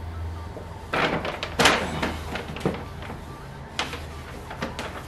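Paper gift bag rustling and crinkling in a few short bursts as it is handled and opened.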